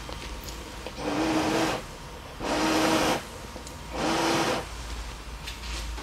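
A person blowing out three long puffs of breath, each under a second, about a second and a half apart, with a faint whistle-like tone in each.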